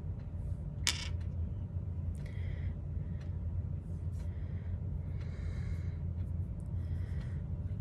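Quiet handling sounds of eyeshadow being swatched: a sharp click about a second in, then a few soft brushing sounds of a fingertip rubbing powder onto the skin of the forearm, over a steady low hum.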